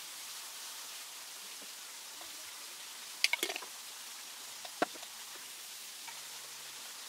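Containers being handled and set down on a wooden table: a quick cluster of sharp clicks about three seconds in and a single knock near five seconds, over a steady hiss.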